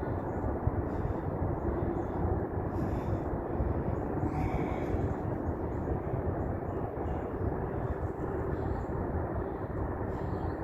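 Steady low engine rumble, with faint high bird sounds coming and going above it.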